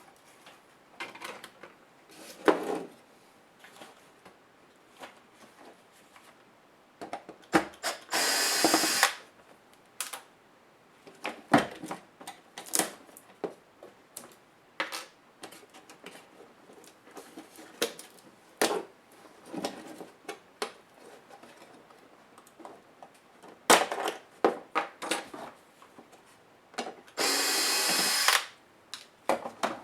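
A small electric screwdriver runs twice, about a second each time, backing out laptop screws, between scattered clicks and knocks of plastic parts and tools being handled.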